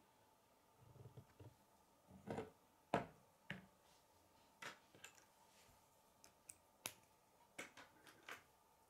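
Irregular sharp plastic clicks and taps as K'nex rods and connectors are handled and clicked together, the loudest about three seconds in.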